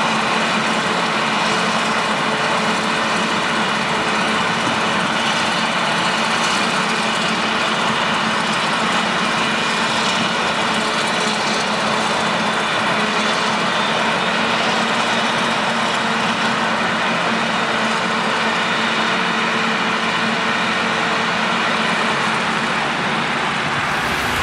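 Claas Jaguar 970 forage harvester chopping maize with its Orbis 750 header, blowing the chopped crop up its spout into a trailer alongside. Its engine runs steadily under load, with a steady high whine over the machine noise throughout.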